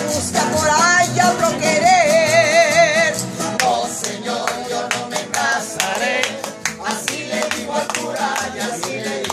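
A woman singing a Mexican ranchera to strummed acoustic guitar, holding one long note with a wide vibrato about two seconds in. Hands clap along in the second half.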